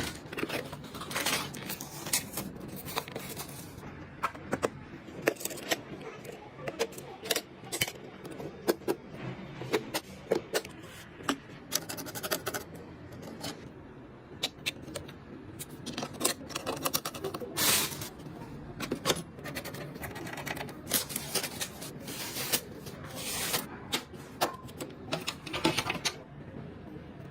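Irregular clicks, taps and light plastic-and-metal knocks of computer parts being handled and fitted together during a PC build, with a few short scraping or rustling passages.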